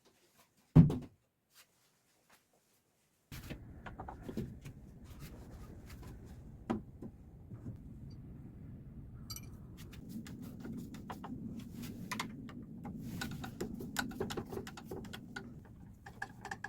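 A single heavy thump, then after a short silence a run of light clicks and knocks from objects being handled, over steady low background noise.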